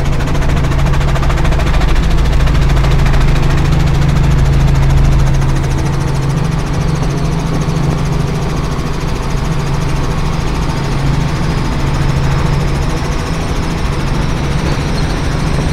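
Helicopter engine and rotor drone heard from inside the cabin, loud and steady, with a deeper rumble that eases about five seconds in.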